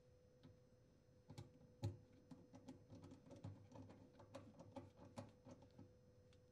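Faint, irregular clicks and knocks of a dishwasher drain hose and its fitting being handled and pushed onto the sink drain connection, the sharpest knock about two seconds in, over a faint steady hum.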